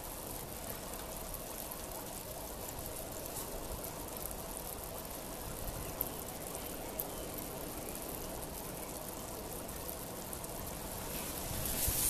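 Steady outdoor water noise, an even hiss with no calls in it, with two faint ticks about six and seven seconds in; the level starts to rise right at the end.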